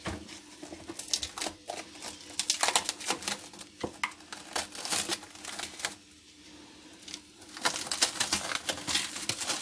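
Irregular crinkling and light clicking handling noises, dipping quieter for a moment about six seconds in.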